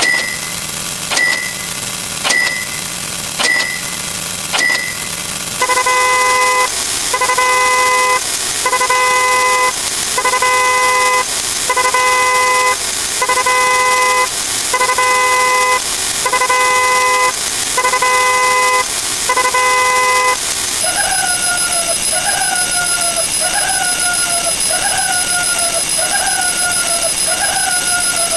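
A string of sound effects repeating once per count. First a short click and beep about every second. Then a car-horn honk sounding about a dozen times, once every second or so. Then an electronic alarm-like chirp falling in pitch, repeating about once a second.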